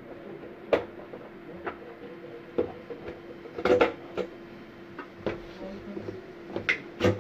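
Irregular clicks and light knocks of metal and plastic parts of a DVR casing and hard drive being handled during installation, about nine in all, with a cluster of louder knocks near the middle and near the end, over a faint steady hum.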